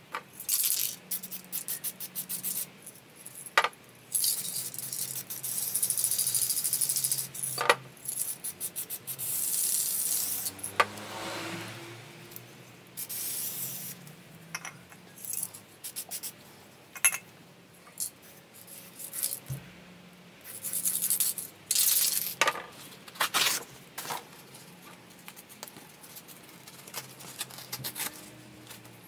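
Aerosol spray-paint cans hissing in bursts of a second or more, the longest a few seconds, alternating with the fast clatter of a can being shaken, its mixing ball rattling inside.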